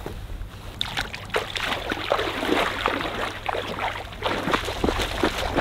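Shallow water splashing and sloshing in quick, irregular splashes, starting about a second in, as someone wades in to put the boat back in the water.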